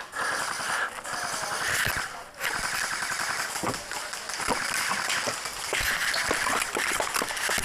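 Airsoft guns firing: a run of sharp clicks and snaps, irregularly spaced, mostly from about two and a half seconds in.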